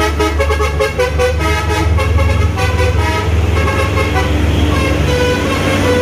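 Truck's Basuri telolet multi-tone horn playing a dangdut-style tune in quick rhythmic notes, giving way about halfway to longer held tones, over a steady low rumble.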